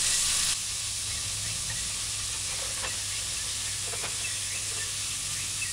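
Bone-in chicken pieces frying in coconut oil in a stainless-steel saucepan: a steady sizzle that is louder for the first half second, then settles lower, with a couple of faint taps of the cooking fork against the pan as the pieces are turned.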